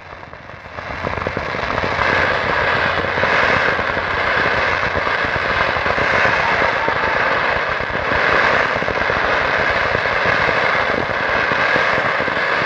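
Fireworks crackling in a dense, continuous barrage of rapid pops, building over the first two seconds and then holding steady and loud.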